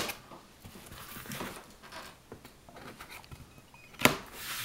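A hand handling a cardboard shipping box, making faint rustles and scrapes, with a sharp knock about four seconds in.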